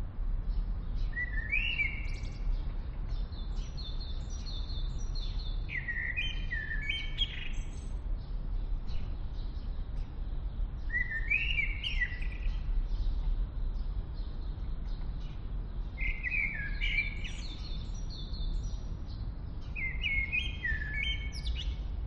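A songbird singing short chirping phrases about every five seconds, over a steady low rumble of background noise.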